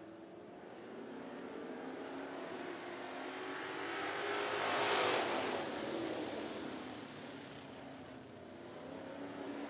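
A pack of vintage-bodied dirt track race cars running around the oval, their engines swelling to a loud pass about halfway through, fading, then building again near the end.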